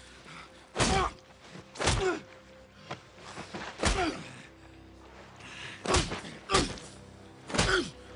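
Fists landing heavy punches on a face, about six blows at uneven intervals roughly a second apart. Film score with low held notes runs underneath.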